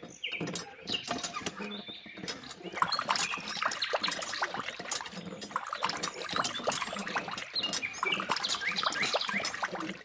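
Miniature hand water pump being worked: many quick clicks and squeaks from the handle, with water trickling and splashing into a bowl.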